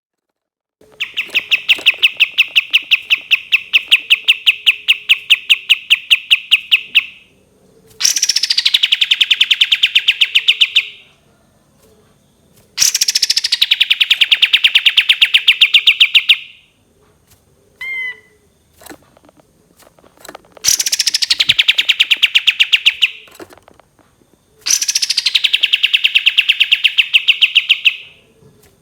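Kapas tembak songbird singing long, rapid trills of fast-repeated notes, about seven or eight a second. There are five phrases, the later ones each opening with a falling note, with a couple of short chips in a pause near the middle.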